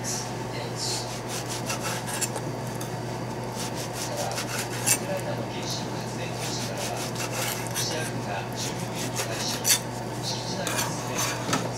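Kitchen knife slicing raw sea bream fillet into sashimi on a plastic cutting board: repeated short cuts and light taps of the blade on the board, with two louder knocks about five and ten seconds in.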